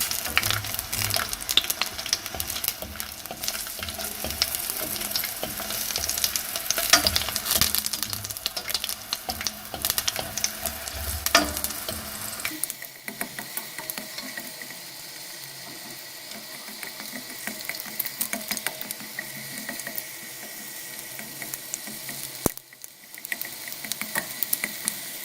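Unpeeled garlic cloves frying in hot olive oil in a pan, crackling and sizzling while they are stirred. About halfway through the sound drops to a quieter, steadier sizzle.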